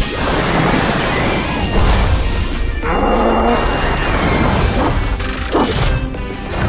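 Cartoon sound effects of metallic, mechanical crashes and clanks over music, for an animated bulldozer's transformation sequence.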